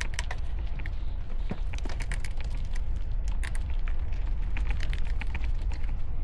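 Wind rumbling steadily on a helmet-mounted camera microphone while cycling, with irregular clicks and crackles from the moving bicycle and its tyres.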